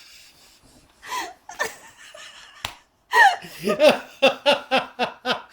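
A person laughing hard: a couple of breathy bursts, then from about three seconds in a fast run of repeated laughs, about four a second. About two and a half seconds in there is one sharp click.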